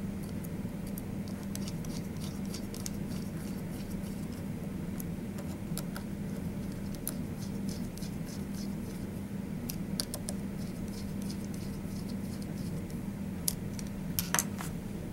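Small ticks and scratches of a 1.5 mm hex wrench turning and seating the cap screws in a spindle's lower bearing plate, a few more near the end, over a steady low hum.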